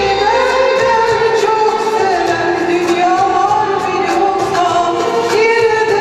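A woman singing a Türk sanat müziği (Turkish classical art music) song solo into a microphone, her melody gliding and ornamented, accompanied by violins and accordion.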